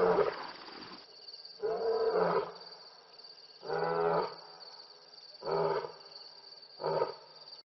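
A big cat's roaring bout: five deep grunting roars about one and a half to two seconds apart, getting shorter toward the end. A faint steady high tone runs underneath.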